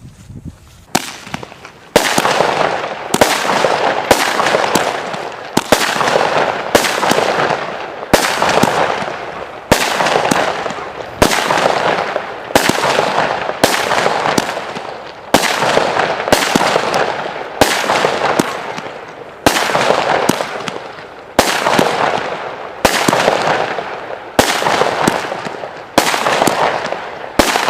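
Gladiator firework cake firing shot after shot, about one every second or so: each a sharp bang trailing off in a fading crackling hiss.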